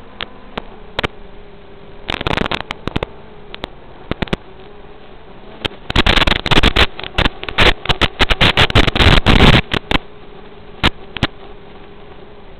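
Steady hiss from an analog FPV video receiver's audio channel, broken by crackling static: a short burst about two seconds in and a dense, loud run of crackles from about six to ten seconds in, the sign of the radio link breaking up.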